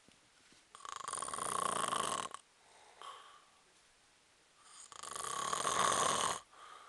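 Snoring: two long snores about four seconds apart, each lasting close to two seconds and growing louder as it goes, with a short faint one between them.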